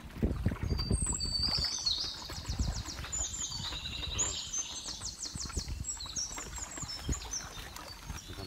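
A songbird singing a busy phrase of high whistled notes and quick trills, starting about a second in and fading near the end, over a low irregular rumble.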